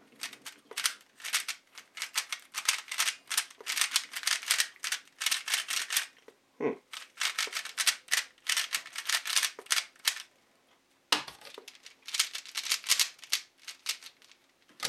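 A new 3x3 speedcube turned rapidly by hand: quick runs of plastic clicking and rattling as the layers turn, with brief breaks about six and ten seconds in. The cube is still unlubricated and untensioned.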